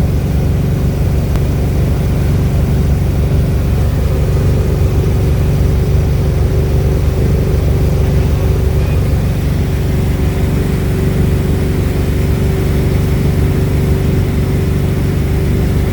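Inboard engine of a 2008 Malibu 23 LSV wake boat running steadily under way, a constant loud drone with a steady hum.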